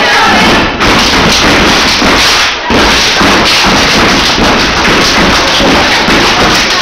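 Step team stepping: feet stomping on a hard floor and hands clapping and slapping in unison, a loud run of rhythmic thuds with two short breaks in the pattern.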